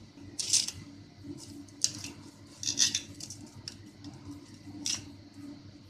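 Kitchen knife cutting into a soft, peeled roasted tomato and scraping and clicking against a stainless steel plate, in a few short, sharp scrapes.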